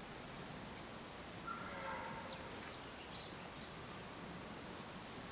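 Faint wild birds chirping over a steady background hiss. About one and a half seconds in comes one short, slightly falling call, lower in pitch than the chirps.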